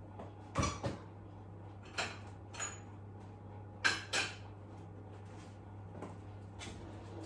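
Kitchen utensils knocking and clinking against a mixing bowl while frangipane is scraped out and handled: three pairs of short knocks, over a low steady hum.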